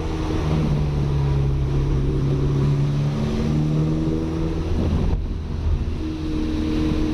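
Audi A3 1.8T's turbocharged four-cylinder engine running at fairly steady, moderate revs while the car drives along a wet road, with a hiss of tyres on the wet surface. The engine note dips briefly about five seconds in, then carries on.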